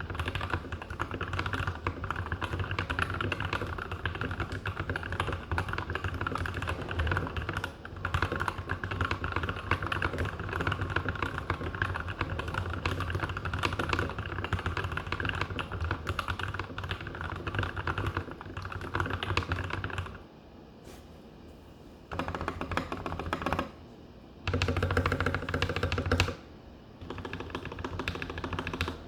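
Fast, continuous typing on a GK64 mechanical keyboard with Krytox-lubed Tealios v2 linear switches with milky Gateron top housings and lubed plate-mount stabilizers. It breaks off in three short pauses in the last third.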